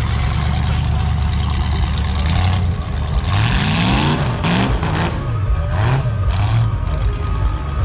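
Demolition derby car engine revving as the car drives through the mud pit, rising in pitch about three seconds in, then surging up and down.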